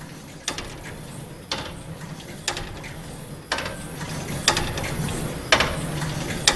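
The Corpus Clock's grasshopper escapement ticking, one sharp click each second as the large escape wheel steps on, over a steady low hum.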